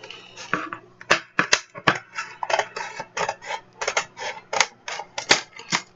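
Scissors snipping at the pencil set's plastic packaging: a rapid run of sharp plastic clicks and snips, about four a second, starting about a second in.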